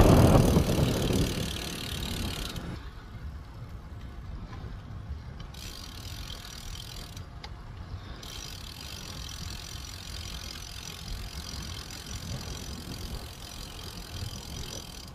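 Road bicycle on the move: low wind rumble on the microphone with the ticking of a coasting freehub. A louder rush of wind and road noise fades in the first two seconds.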